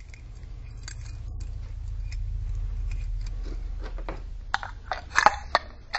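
Small clicks and taps of a halogen lamp being fitted into a halogen downlight fixture by hand, gathering into a quick cluster near the end, over a low steady hum.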